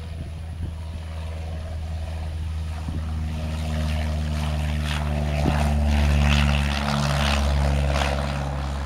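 Cessna 172 taking off and passing close by, its propeller engine droning at takeoff power. The drone builds from about three seconds in, is loudest around six seconds, then eases as the plane climbs away.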